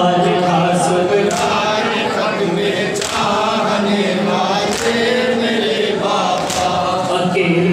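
A group of men chanting an Urdu noha (Shia mourning elegy) in unison through a microphone and PA, led by a solo reciter. A sharp slap cuts through about every one and a half to two seconds.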